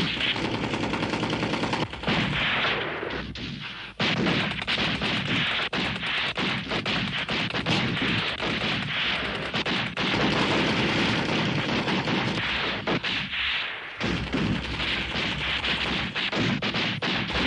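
Heavy gunfire from many guns firing at once, a dense run of shots several a second over a low rumble, with short lulls about two and four seconds in and again near the end.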